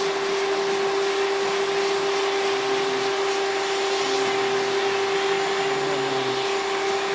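Vacuum cleaner running steadily with a brush attachment on, a constant motor hum over the rush of air.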